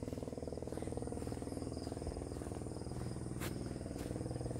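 Night chorus of calling frogs and insects: a steady, fast-pulsing trill with a thin high note above it.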